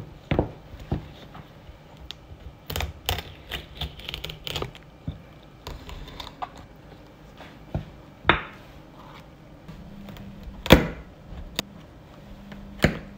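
Kitchen knife cutting through raw snow crab leg shell at the joints on a wooden cutting board: irregular sharp clicks and knocks of the blade on shell and board, with a few louder chops near the end.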